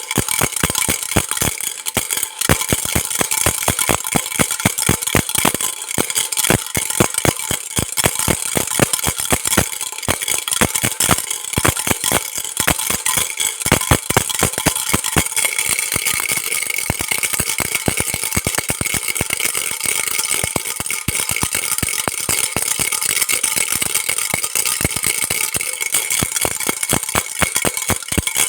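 Baby rattle shaken continuously, a dense, irregular clatter of rapid clicks.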